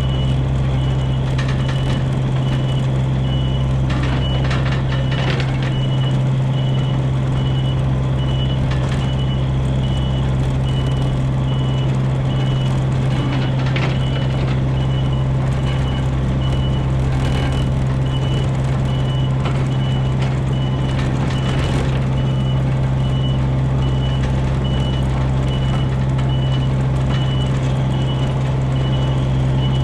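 Komatsu PC27 mini excavator's diesel engine running steadily while its travel alarm beeps at an even pace, with a few brief clanks.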